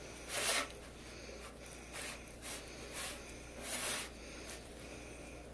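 Hands mixing crumbly flour-and-water dough in a bowl: soft scratchy rubbing and squishing in short bursts, about one a second.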